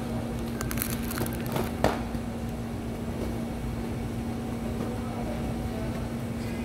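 Supermarket background with a steady hum and low rumble. About half a second in there is a short patch of rustling and clicks, ending in a sharp knock about two seconds in.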